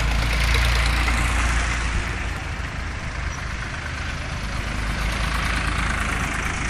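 Vintage tractors towing passenger trailers drive slowly past close by, their engines running steadily at low speed. The sound is loudest about a second in as the first tractor passes, then eases a little as the next one follows.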